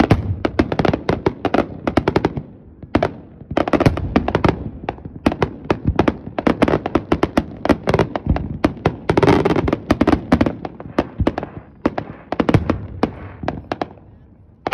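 Fireworks finale: aerial shells bursting in rapid, overlapping volleys of bangs and crackles, with brief lulls about three seconds in and again near the end.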